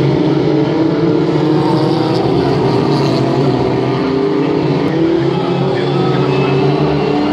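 A pack of Formula Ford single-seaters racing past, their 1600 cc Ford Kent four-cylinder engines heard together. Several engine notes overlap and rise and fall in pitch as the cars lift off and accelerate through the corner.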